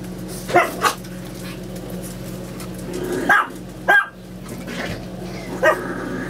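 Chihuahua puppies play-barking: about five short, high yips in three groups, over a steady low hum.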